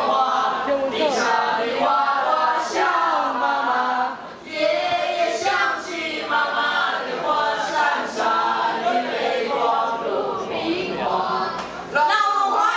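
A boy and a girl singing a song together through microphones, with no instruments to be heard.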